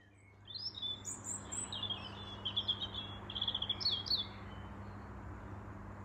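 A small songbird singing a string of quick, high chirps and trills that stops about four seconds in, over a steady low hum.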